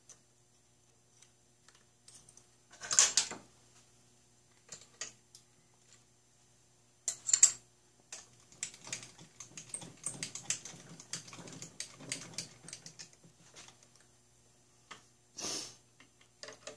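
Metal tooling being handled at a small mill with the spindle stopped: a run of light clicks and taps, densest in the middle, with three brief louder scrapes about three, seven and fifteen seconds in.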